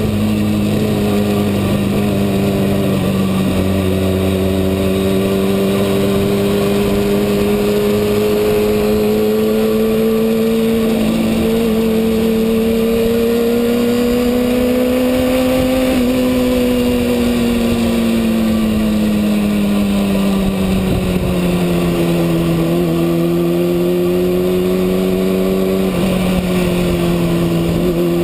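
Kawasaki ZX-6R's inline-four engine running at steady revs, its pitch climbing slowly through the first half and then easing back down and holding.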